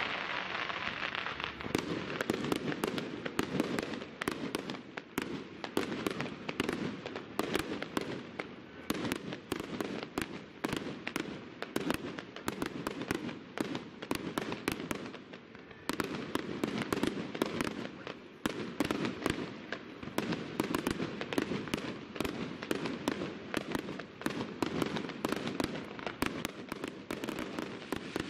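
Aerial fireworks bursting overhead: a rapid, near-continuous run of bangs and crackles, with a short lull about halfway through before the bursts pick up again.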